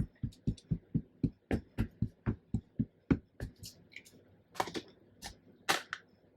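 Rapid light tapping of inking and stamping on a craft table, about four taps a second, slowing and stopping about three and a half seconds in. Two brief papery rustles follow near the end.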